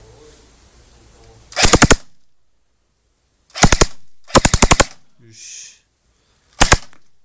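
Airsoft electric rifle firing four short full-auto bursts, rapid sharp cracks a few shots each, the last burst the shortest. The bursts are loud and close.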